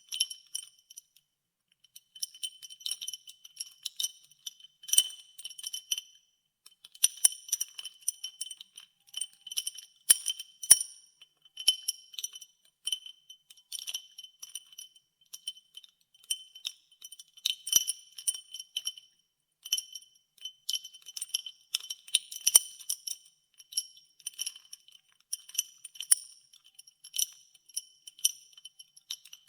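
Ice cubes stirred in a glass of water, clinking quickly and irregularly against the glass, each clink ringing briefly at a few high pitches. The clinking pauses briefly about a second in and again about six seconds in.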